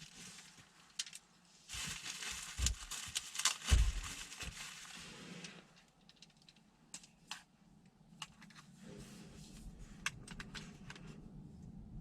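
Irregular sharp clicks and rustling, dense with a few low thumps from about two to five and a half seconds in, then sparser clicks.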